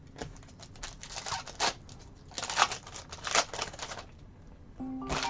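Trading cards being handled and flipped through, a quick run of clicks and papery swishes with a few louder swipes. Music starts near the end.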